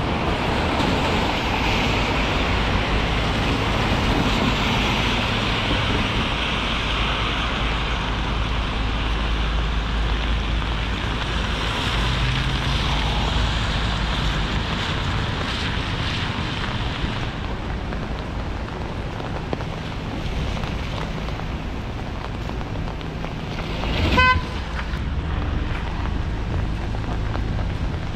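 Rainy city street ambience: a steady hiss of rain and car traffic on wet roads over a low rumble. A car horn gives one short toot near the end.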